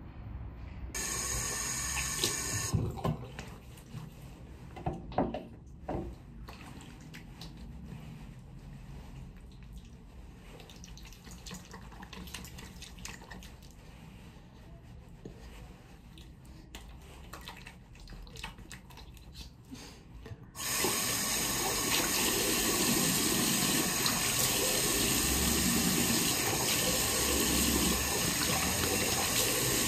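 Bathroom tap running into a sink while someone washes their face. Quieter water and handling sounds with a few sharp clicks come first, then the tap comes on suddenly about two-thirds of the way in and runs steadily.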